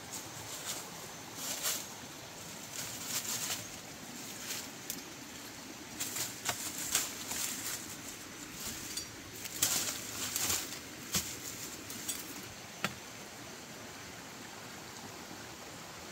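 Footsteps and rustling in dry leaf litter and brush, in irregular crisp bursts as someone climbs down a slope, with one sharp click late on.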